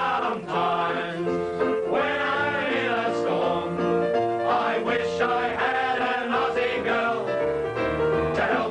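Country-style theme song with singing.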